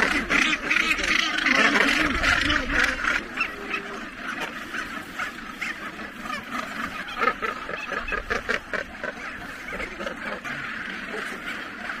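Northern gannet colony calling: many calls overlapping in a dense chorus, loudest over the first few seconds and then a little softer.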